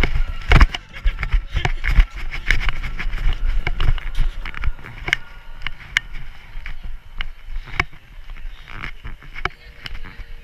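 Footsteps and jostling of a body-worn action camera as a person runs on paving: irregular thumps and clicks with rumble on the microphone. They are heaviest for the first few seconds, then thin out as the pace slows.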